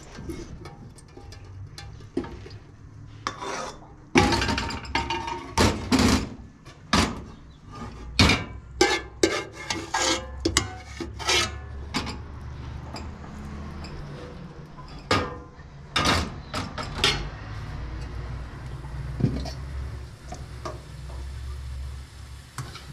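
Cookware and metal utensils clattering and clinking, with a quick run of sharp knocks and clinks through the middle, over a low steady rumble.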